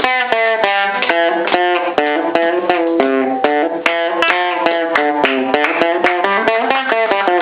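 Guitar played note by note: single picked notes in a quick, uneven melodic run, several notes a second.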